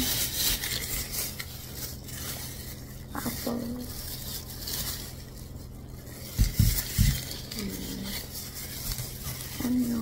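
Groceries being unpacked by hand: packaging rustling and items being set down on a counter, with two dull thumps about six and seven seconds in.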